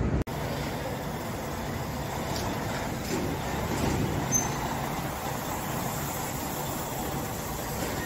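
Steady running noise of heavy machinery as a semi-gantry crane hoists a full soil bucket over a dump truck, with a few light knocks about three to four and a half seconds in.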